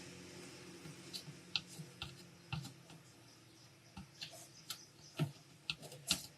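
Irregular light clicks and taps of small tools working on a mobile phone's circuit board while its charging-socket pads are cleaned and tinned with a soldering iron, about a dozen sharp ticks spread unevenly.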